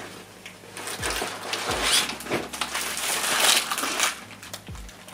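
Plastic crackling and rustling as packs of clear plastic wallets are handled and lifted up, from about a second in until about four seconds in.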